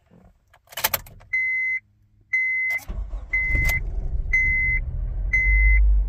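A click of the ignition key, then a dashboard warning chime beeping about once a second while the 2007 Honda Civic's four-cylinder engine cranks, catches a little before halfway and runs on at a low idle. It is a rough start on an engine misfiring on cylinder 2, which the owner puts down to a cracked ignition coil.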